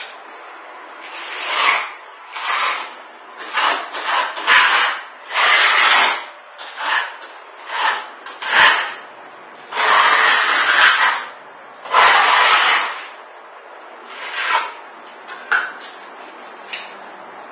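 Notched trowel scraping over a concrete subfloor as it spreads and combs parquet adhesive: about a dozen strokes in an uneven rhythm, some short and two longer ones in the middle, thinning out near the end.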